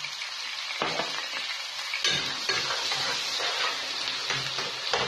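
Veal chunks and sliced onions sizzling in oil in a pot over a strong flame while they brown. A spoon stirs them, clicking and scraping against the pot several times.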